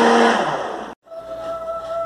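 Countertop blender running on a thick mixture, then switched off, its hum falling in pitch as the motor winds down about half a second in. After an abrupt cut, quieter background music with a steady held note.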